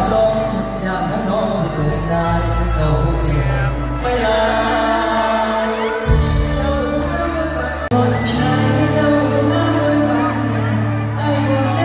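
A male singer sings into a microphone, backed by a live band with bass and drums, amplified through the stage sound system. The bass line changes notes about six and eight seconds in, and cymbal hits keep time throughout.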